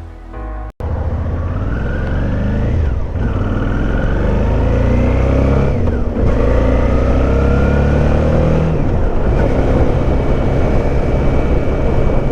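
Suzuki V-Strom motorcycle engine accelerating through the gears, rising in pitch and dropping back at three gear changes before settling to a steady cruise, under heavy wind rush. A brief snatch of music opens before it cuts in.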